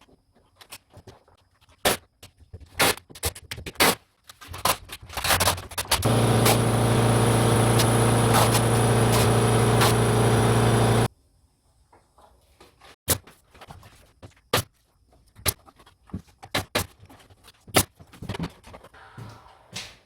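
An electric power saw runs for about five seconds in the middle with a steady hum and hiss, cutting off sharply. Sharp knocks and clicks of hand work on wood come before and after it.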